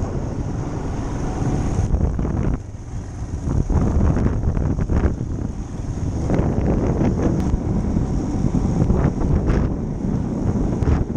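Wind buffeting the microphone of a camera on a moving motorcycle, over the motorcycle's engine running as it rides a dirt track. The rumble is loud and gusty, dipping briefly about two and a half seconds in.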